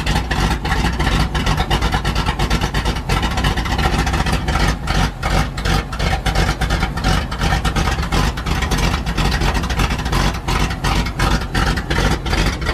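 1974 Chevrolet C60 truck engine idling steadily with the choke out, shortly after a cold start with no priming, with a quick even pulsing beat.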